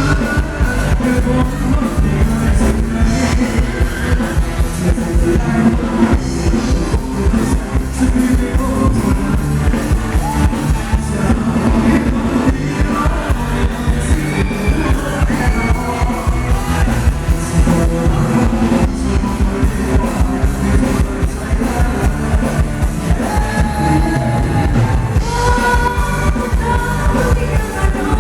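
Live Thai ramwong band music with a steady drum beat and a singing voice over it.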